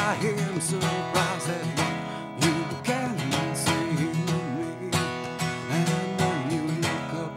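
Acoustic guitar strummed steadily through an instrumental break in a live song, with a melody line over it that bends up and down in pitch.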